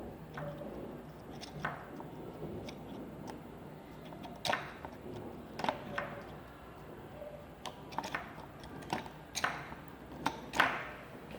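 Pointillism drawing machine tapping dots: irregular sharp clicks of uneven loudness, a few every couple of seconds, the strongest near the end.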